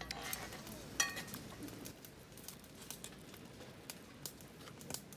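Scattered light clicks and taps of tableware as people eat, with one sharper ringing clink about a second in.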